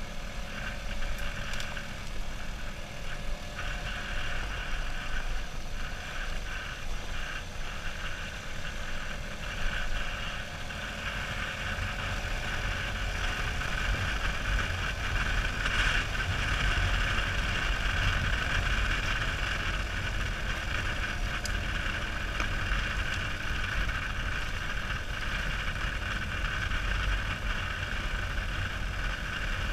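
Motorcycle engine running steadily while riding on a gravel road, with wind and tyre noise, heard from a camera mounted on the bike. The engine note drifts gently and the whole sound gets a little louder about halfway through.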